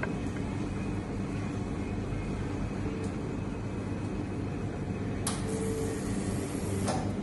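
A steady low machine hum, with a brief hiss starting about five seconds in and lasting under two seconds.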